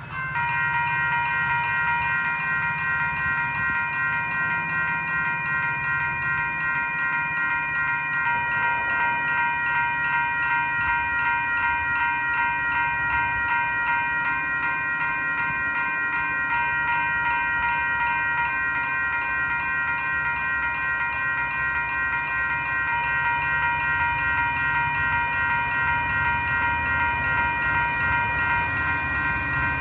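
Railroad grade-crossing warning bell starting up suddenly and ringing with rapid, steady repeated dings, over the low rumble of an approaching diesel commuter train.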